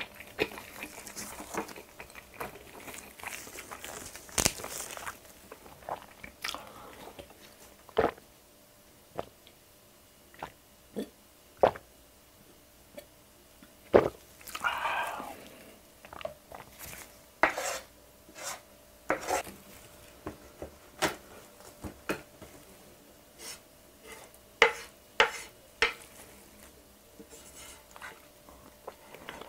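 Close-miked eating sounds: wet chewing and mouth clicks from a mouthful of bibimbap, a plastic water bottle handled and drunk from about halfway through, then a spoon scraping and knocking on a plastic plate as rice is scooped near the end.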